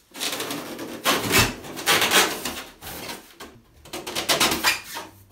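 Expanded polystyrene packing foam squeaking and scraping against itself as a large moulded foam shell is prised up and lifted off, in several uneven bursts, loudest between about one and two and a half seconds in.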